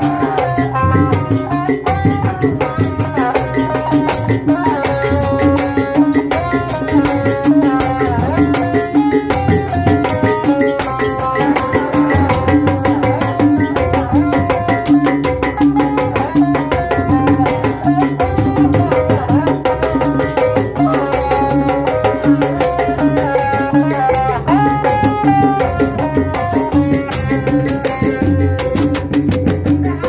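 Sundanese tanji street band playing: a hanging gong, bass drum and snare drums keep a driving beat under a wavering melody line, continuous and loud.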